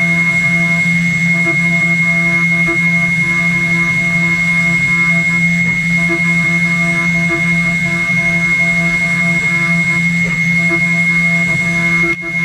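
CNC router spindle cutting, a steady high whine with a lower hum underneath and a faint pulsing tone, interrupted briefly just before the end.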